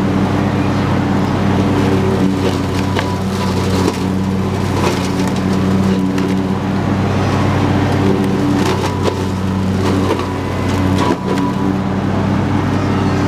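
Husqvarna YTH22V46 lawn tractor's V-twin engine running steadily under load as its mower deck cuts through tall weeds and brush, with frequent sharp clicks and cracks of sticks and debris striking the blades and deck.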